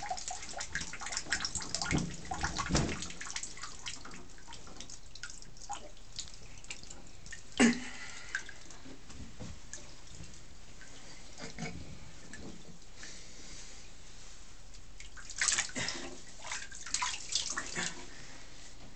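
Water dripping and splashing in a bathtub around a wet beagle standing in shallow water, with scattered small splashes and clicks. A single sudden sharp sound comes about eight seconds in, and a cluster of louder splashes and knocks near the end.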